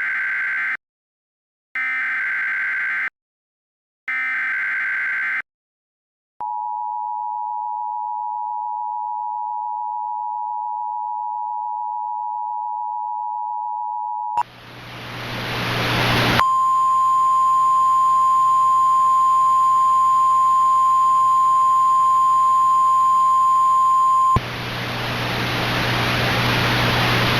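Emergency Alert System alert: three short SAME header data bursts, then the steady two-tone attention signal for about eight seconds. Then static cuts in, and a single steady NOAA Weather Radio–style warning tone sounds over the static for about eight seconds before the static continues alone.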